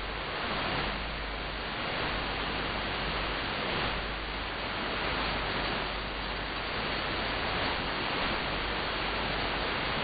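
Shortwave static from a web SDR receiver tuned in AM to 5835 kHz: a steady hiss with no programme audible.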